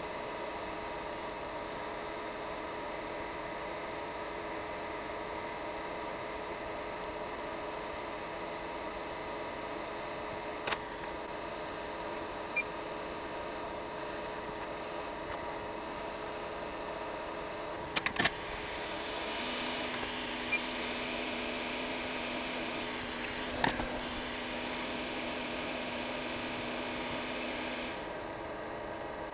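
Steady hum and hiss of running repair-bench equipment, with a few small sharp clicks of tools. About two-thirds of the way through, a louder blowing noise with a low steady tone comes on and cuts off abruptly about eight seconds later.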